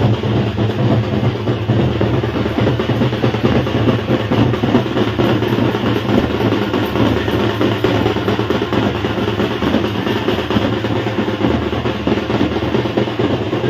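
Music with drums playing throughout.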